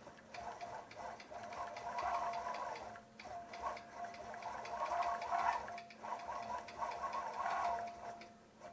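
Gammill longarm quilting machine stitching: a steady motor whine over rapid needle ticking. It eases off and picks up again a few times as the quilter guides the head around a curve.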